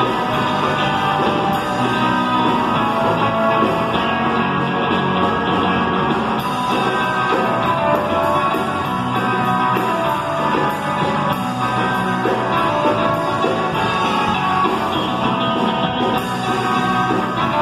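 Surf rock band playing live on electric guitars and electric bass, loud and continuous.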